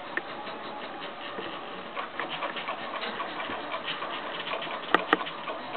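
Home-built 3D printer's stepper motors running during a print, a steady buzz with many quick ticks as the print head moves. Two sharp clicks about five seconds in.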